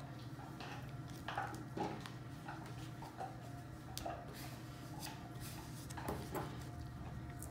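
Quiet handling sounds of duct tape being wrapped and pressed around a foam backer rod: scattered soft crinkles and taps over a steady low hum.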